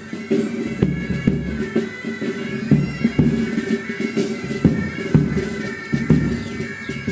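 Pipe band playing: bagpipes sound a melody over steady drones, with regular drum beats throughout.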